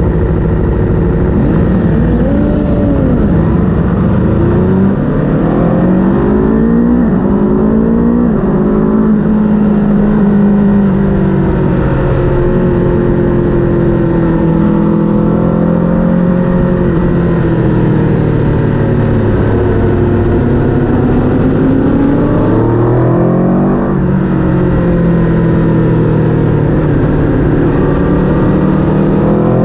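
Racing engine running hard at a steady loudness, its pitch climbing and falling again and again as the vehicle accelerates and slows on a race track.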